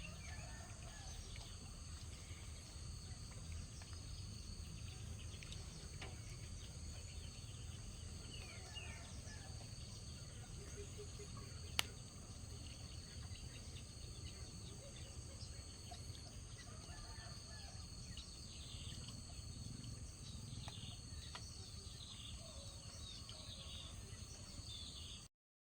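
Rural outdoor ambience: insects trilling steadily in several high tones, with scattered bird chirps and a low rumble underneath. A single sharp click comes about twelve seconds in, and the sound cuts off just before the end.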